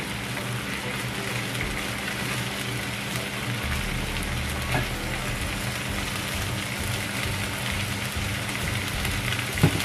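Green paste sizzling steadily in olive oil in a non-stick frying pan, a continuous frying hiss over a steady low hum. One sharp knock comes near the end.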